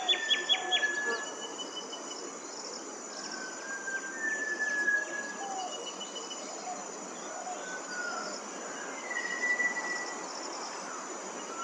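Small waterfall's water rushing steadily, with insects keeping up a high, steady drone. Birds give short whistled notes now and then, and a quick run of sharp chirps comes right at the start.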